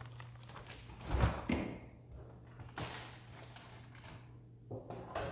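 Side-by-side refrigerator being opened and a plastic bag of marinating meat put inside: a low thump about a second in, then a few short knocks and rustles.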